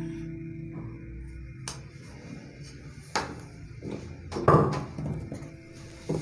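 Acoustic guitar music fading out, then a few separate sharp knocks and clatters, the loudest about four and a half seconds in.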